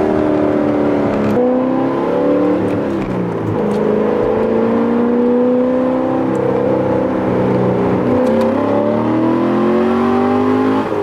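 Corvette V8 with a newly fitted X-pipe exhaust, driving under load. The engine note climbs and falls several times as it works up through the revs and drops at each gear change.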